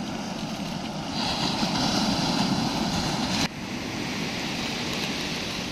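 Steady rushing surf and wind noise, swelling for a couple of seconds and then dropping sharply about three and a half seconds in.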